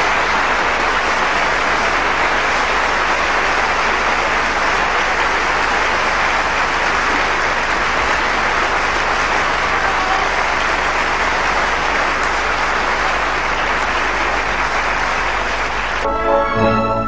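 Theatre audience applauding, a steady, dense clapping. About a second before the end it cuts off abruptly and music begins.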